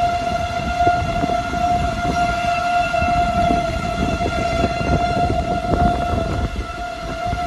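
Outdoor tornado warning siren sounding a steady, unbroken tone, the alert signal for a tornado warning, with low road and vehicle noise underneath.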